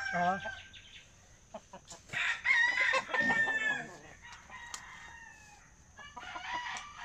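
Roosters crowing several times: one loud crow about two seconds in, then fainter crows later.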